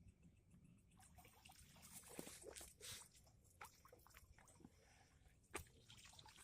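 Near silence with faint, scattered small clicks and rustles, and one sharper click about five and a half seconds in.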